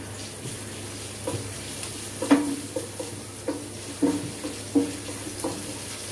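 Garlic paste sizzling in hot mustard oil in a non-stick frying pan, stirred with a wooden spatula that knocks and scrapes against the pan roughly once a second.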